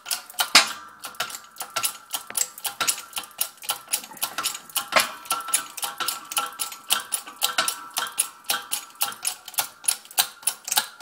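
Hydraulic jack of a 12-ton shop press being pumped by its handle, giving a fast, even clicking of about four clicks a second, as it presses a bearing onto a Gravely Model L axle.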